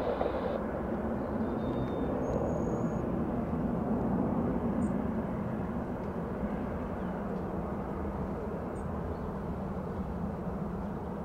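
Turboprop airliner, a Dornier 328 with its two turboprop engines, running as a steady noise that swells slightly about four seconds in and then eases.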